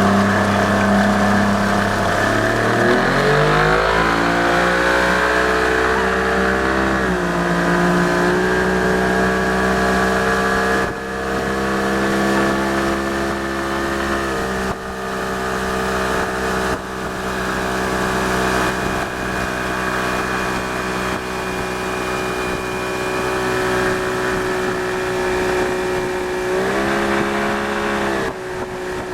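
Yamaha 90 hp two-stroke outboard motor running a small motorboat at speed. Its pitch climbs steeply about three seconds in as it accelerates, then holds steady at high revs with small shifts, and it dips briefly and picks back up near the end.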